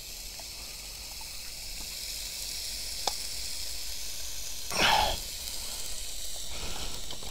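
Steady high hiss from a small Campingaz portable gas grill with food on its grate, while its gas cartridge is being swapped underneath. A small click about three seconds in and a short, louder hiss about five seconds in.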